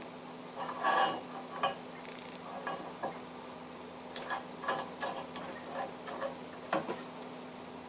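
Scattered light metallic clinks and taps at uneven intervals, like tools and metal parts being handled, over a steady low workshop hum.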